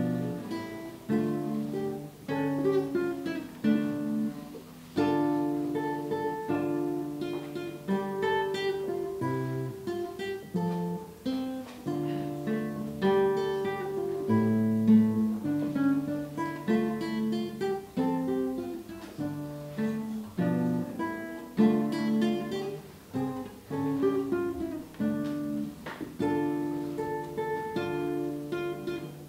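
Solo classical guitar played fingerstyle: a steady run of plucked melody notes over lower bass notes.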